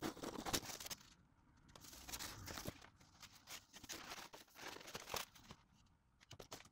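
Large rolled paper posters being unrolled and smoothed flat by hand: stiff poster paper rustling and crackling in irregular spurts, with a few light taps.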